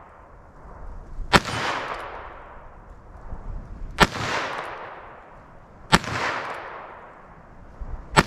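.22 Magnum rounds fired from a Heritage Rough Rider single-action rimfire revolver: four sharp cracks, the first about a second in and the rest roughly two seconds apart, each with a fading tail.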